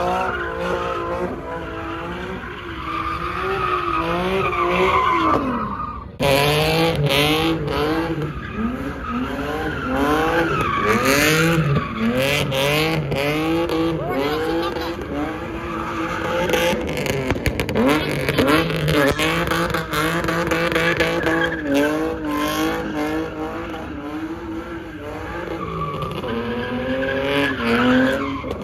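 Car engine revving up and down over and over, with tyres skidding and squealing, as in a sideshow spin. The sound breaks off abruptly about six seconds in and picks up again at once.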